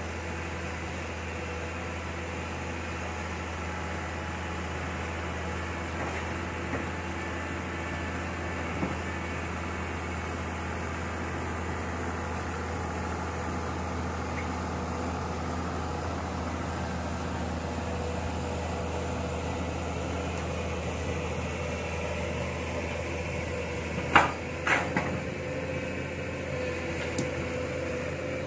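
Diesel engine of a Kobelco SK07 long-reach excavator running steadily while the machine moves along. A few light knocks come early, and two loud metal clanks follow in quick succession near the end.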